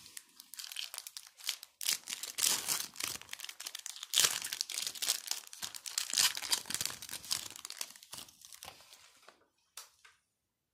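Foil wrapper of a Match Attax trading card booster pack being torn open and crinkled by hand, rustling for about nine seconds and loudest about four seconds in. A brief last crinkle follows, and then the sound stops.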